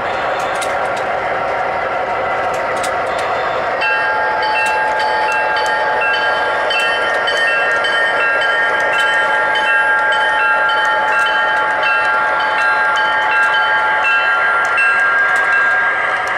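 MTH model diesel locomotive's onboard sound system sounding a long, steady horn chord, with a repeating bell-like ring over it. The horn starts about four seconds in and cuts off at the end. Under it runs the steady rumble of the model train rolling on the track.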